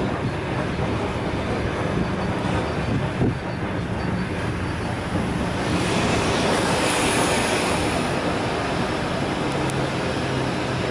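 ED4M electric multiple unit running, heard from inside the carriage: a steady rumble of wheels on rails with a low hum underneath. About six seconds in, a louder rushing hiss swells for a couple of seconds and then eases.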